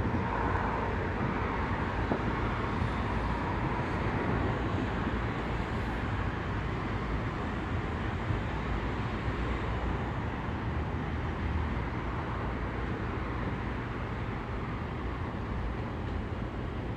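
Steady low rumble of downtown city traffic heard from high above, with no distinct firework bangs.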